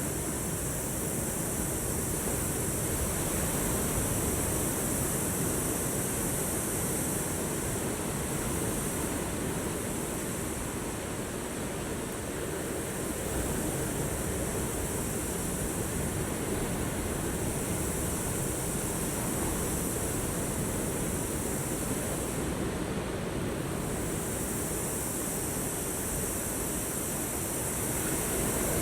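Ocean waves breaking and washing on the shore: a steady surf wash, with a steady high hiss above it.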